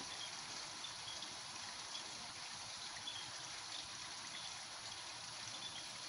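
Steady outdoor background hiss, even and unchanging, with faint brief high chirps now and then.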